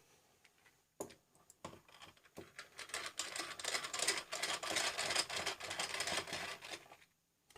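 Screwdriver backing a case screw out of a plastic computer case: a few separate clicks, then a fast, even run of clicking that lasts about four seconds and stops.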